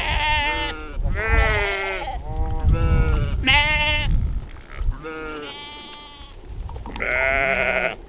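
Sheep and lambs bleating: six or seven wavering calls one after another, some overlapping, with a long loud one near the end.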